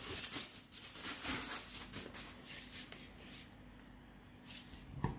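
Faint handling noises from the Silvercrest SMAS 600 A1 milk frother's plastic jug being turned in the hands, light rubs and ticks, with one sharper click near the end as the lid is gripped.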